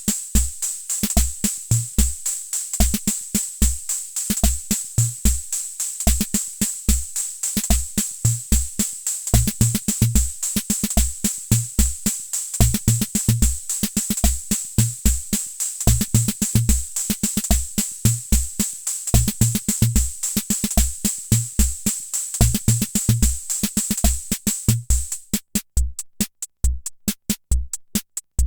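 Hammond Auto-Vari 64 analog rhythm machine playing a preset beat: low bass-drum thumps in a steady repeating pattern under dense hi-hat and cymbal ticks. Near the end the pattern switches to sparser, sharper ticks.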